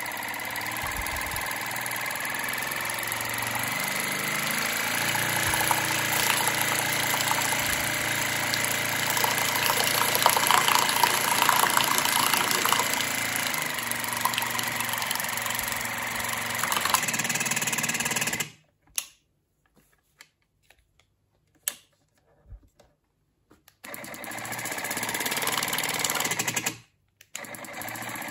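Electric pump of a Housiwill countertop water flosser running with a steady motor buzz, its pitch rising over the first few seconds while the pressure dial is turned. It stops suddenly about two-thirds of the way through, runs again briefly, stops, and starts once more near the end.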